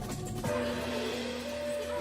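Background music score, with a new cue of long held notes coming in about half a second in.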